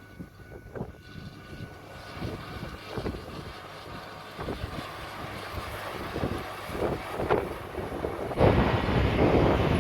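An engine running steadily and slowly growing louder, with a sudden step up in level about eight seconds in.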